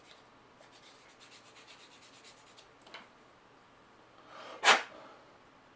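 Fine sanding stick rubbing against a small plastic model part in quick, light strokes that stop after about two and a half seconds. A small click follows, then one short, loud rush of noise about four and a half seconds in.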